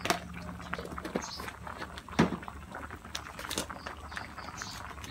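A pot of moringa-pod curry boiling hard, a dense crackle of bubbles popping and spitting. A single louder sharp knock comes about two seconds in.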